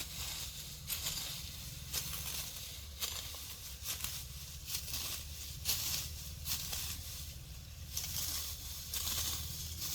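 Hand sickle cutting grass: a string of short crunching swishes as the blade slices through the stems, about one or two strokes a second, irregular, over a low steady rumble.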